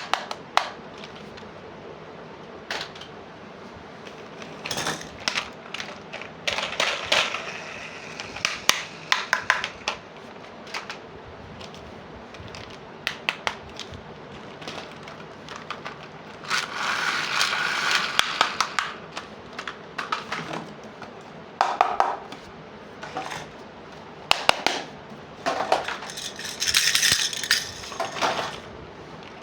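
Small plastic toy pieces being handled: scattered clicks and taps, with a few longer stretches of rustling and scraping, the longest about halfway through and near the end.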